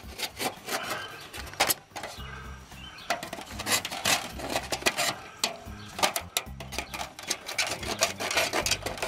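Flexible aluminum foil duct crinkling and crackling as it is cut through with a pocket knife and worked apart by hand, many irregular sharp crackles with no steady rhythm.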